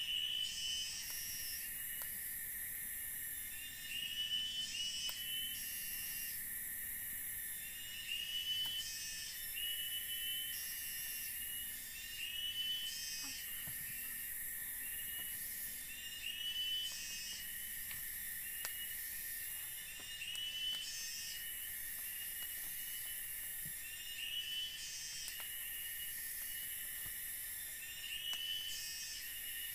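Forest insect chorus: a high, shrill buzz that pulses on and off every couple of seconds over a steady thin whine, with short chirping calls repeating about once or twice a second.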